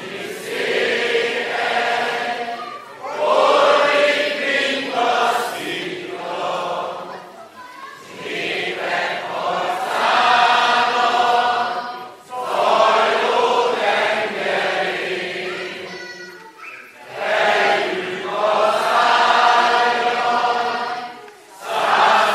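A large crowd singing together without accompaniment, in long phrases of about four seconds with short breaks between them.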